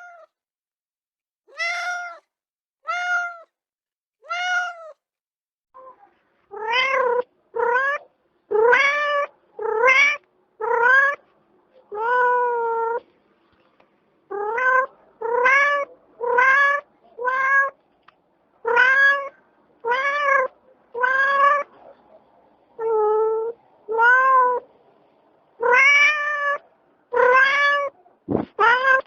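Domestic cat meowing over and over: three short, higher calls at first, then a long series of loud meows, about one a second.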